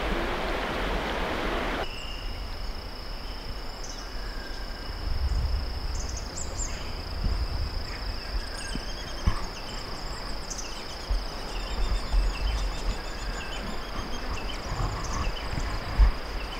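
Creek water running for the first two seconds. It cuts off abruptly to a steady, high-pitched insect drone, with a few faint bird chirps and occasional low rumbles.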